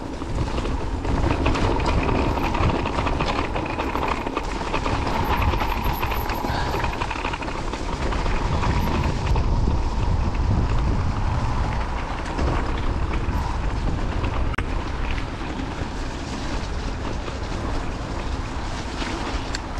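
Electric mountain bike being ridden over a rough trail: continuous rumbling tyre and wind noise with a steady patter of rattles and clicks from the bike.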